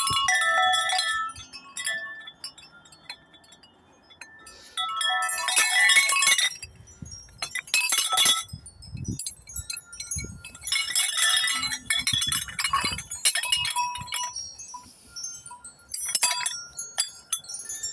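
Nature's Melody 36-inch wind chime ringing in the wind: clusters of several overlapping tones struck together, then ringing on and fading, with louder bursts of strikes a few times.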